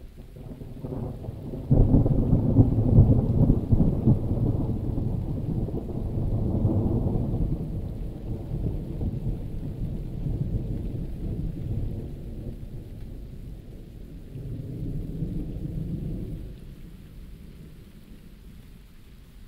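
Thunder rolling over steady rain: a deep rumble comes in suddenly about two seconds in, is loudest for the next couple of seconds, then rolls on with a swell near the middle and another near the end before dying down. A faint even rain hiss runs underneath.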